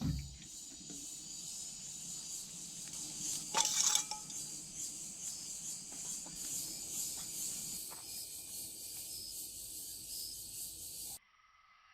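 Scraping and rubbing sounds over a steady high-pitched buzz, with one louder scrape about four seconds in; the sound cuts off suddenly near the end.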